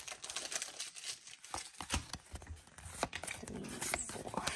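Pokémon trading cards being shuffled through in the hand, each card slid from the front to the back of the stack, giving a quick irregular run of light card snaps and rustles.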